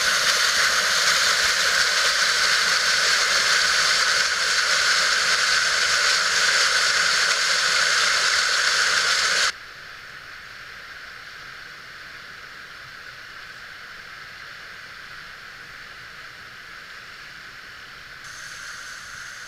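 Steady rush of fast-flowing high water at a spillway, loud for the first nine or so seconds, then cutting suddenly to a much fainter, more distant rush.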